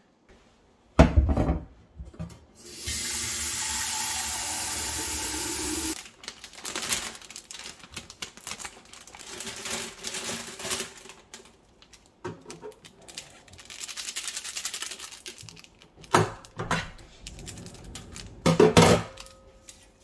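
Kitchen tap running into a ceramic vase in a stainless steel sink for about three seconds, filling it with water. Around it come handling noises: a loud knock about a second in, rustling and clatter, and two more sharp knocks near the end.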